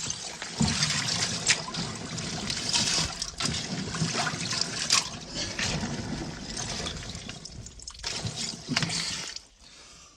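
Water sloshing and trickling in an ice-bath chest as a body moves in it. It goes on steadily for about nine seconds and dies away near the end.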